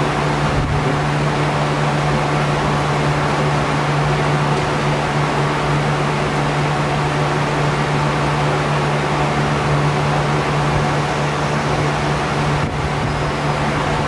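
Steady mechanical hum of a running machine: a strong constant low tone over an even hiss, unchanging throughout.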